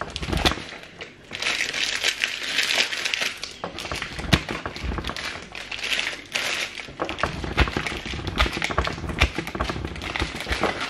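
Parmesan cheese being grated on a metal box grater: a run of quick rasping strokes in several spells, the scraping strongest about two and six seconds in.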